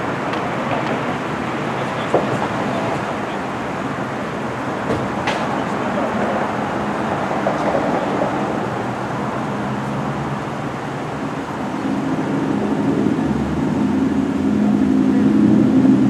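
Steady road-traffic and vehicle noise, with a low engine hum growing louder over the last few seconds.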